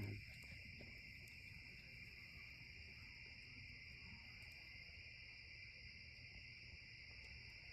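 Faint, steady night chorus of crickets, an unbroken high trill.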